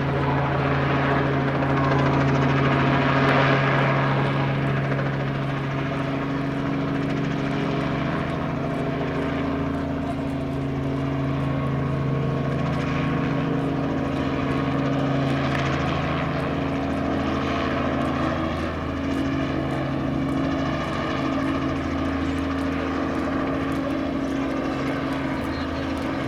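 Robinson R44 Raven helicopter in flight: a steady low hum of rotor and piston engine, swelling slightly about three seconds in.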